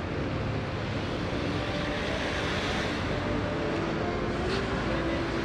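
Steady street traffic noise, swelling briefly about two seconds in.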